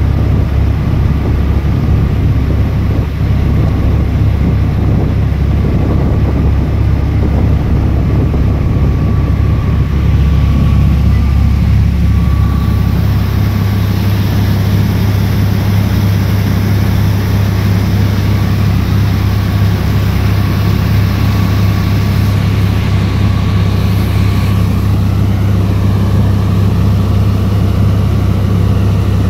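A small fibreglass boat's engine running steadily in a loud, low drone, heard from aboard; its pitch rises slightly about a dozen seconds in.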